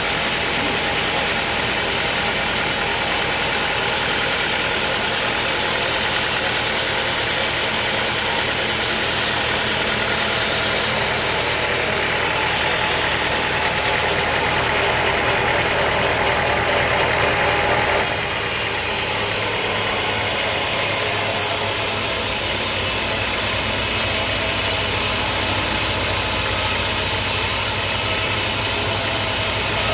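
Sawmill machinery running steadily, an engine-type drone with mechanical rattling. The sound changes abruptly about eighteen seconds in.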